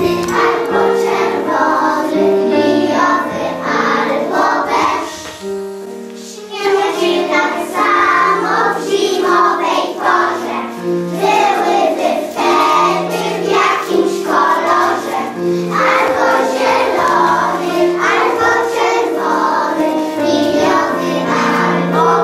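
Young children singing together as a group over instrumental accompaniment, with a short lull in the music about six seconds in.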